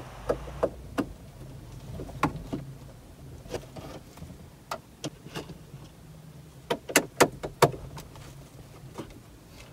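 A Phillips screwdriver backs out the screws that hold a Toyota Vios head unit in the dash, making scattered sharp clicks and ticks with a quick run of about five clicks in a row past the middle. A steady low hum runs underneath.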